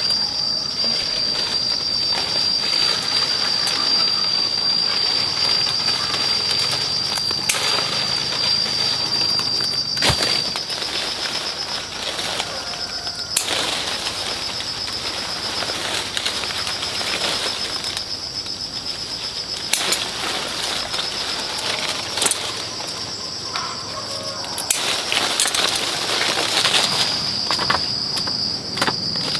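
Leaves and branches of a soursop tree rustling as a person climbs and works among them, with several sharp clicks. Underneath runs a steady high-pitched insect drone that turns into a pulsing trill about ten seconds in.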